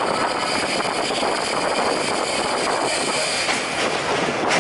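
Stainless-steel subway train pulling into the station, its wheels running on the rails with a steady rumble and a thin high whine. There is a sharp clack near the end.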